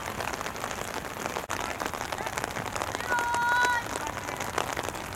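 Steady outdoor noise with fine, dense crackling throughout. About three seconds in, a voice shouts one long held call lasting under a second.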